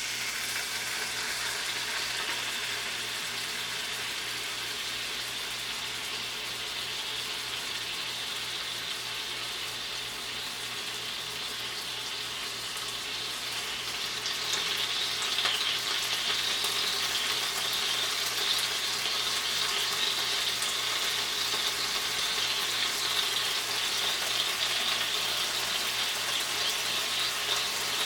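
Marinated pork tenderloin slices frying in olive oil in a frying pan, a steady sizzle that grows louder about halfway through.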